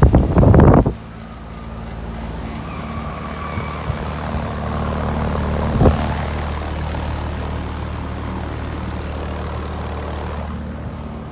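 Outdoor air-conditioning condensing unit running: a steady low hum from the compressor and fan. A loud rumble of wind or handling on the microphone in the first second, and a brief knock about six seconds in.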